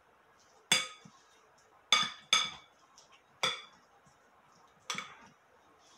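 Spoon striking the glass mixing bowl full of guacamole: five sharp clinks at uneven intervals, each with a brief glassy ring.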